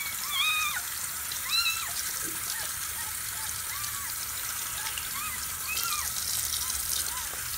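Tap water running from a bathroom faucet into the sink and over a two-week-old kitten being rinsed, with the kitten giving a string of thin, high mews, the clearest near the start.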